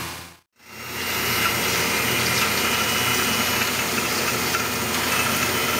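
Electric food processor motor running steadily as it chops boiled soybeans, starting about a second in after a brief silent gap.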